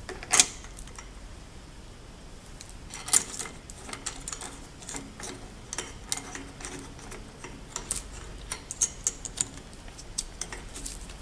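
Clicks and knocks of plastic and metal parts being handled: a laminating film roll being fitted onto its shaft with plastic core chucks and a metal locking collar. A sharp knock comes about half a second in and another about three seconds in, then a scatter of small clicks.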